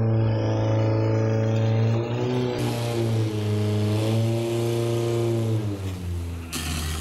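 Portable fire pump engine running flat out at a steady high pitch while it drives water through the hoses. Its pitch dips briefly twice and then settles lower about six seconds in.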